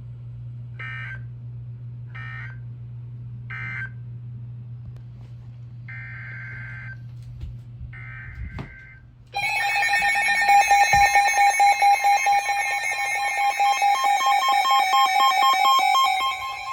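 Emergency Alert System tones: three short warbling digital data bursts about a second and a half apart (the end-of-message code), then two longer data bursts (the header of the next alert), over a low steady hum. About nine seconds in, the loud two-tone EAS attention signal starts and holds steady with a harsh, pulsing edge.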